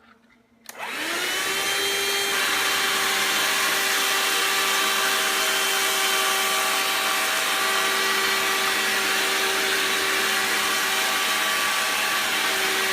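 A Hoover Linx cordless stick vacuum switches on just under a second in. Its motor spins up quickly, rising in pitch, then runs steadily.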